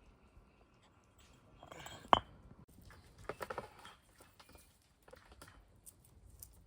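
Metal pots and utensils clinking and knocking as they are handled, with one sharp knock about two seconds in and a few lighter clinks a second or two later.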